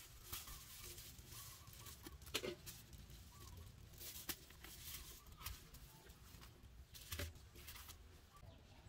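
Faint crinkling and rustling of bubble-wrap packaging as a phone display assembly is handled and unwrapped, with a few sharper crackles.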